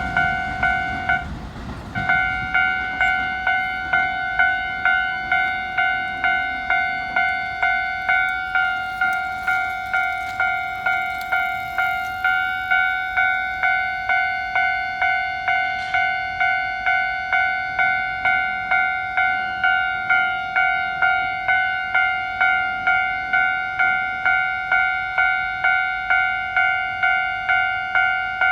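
Japanese railway level-crossing alarm ringing in a steady, evenly repeated electronic ding. It stops briefly about a second in, then rings on without a break.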